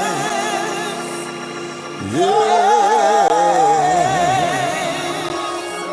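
Gospel singing: a man holds long notes with a wide vibrato over a steady sustained organ-like chord. A new held note begins about two seconds in.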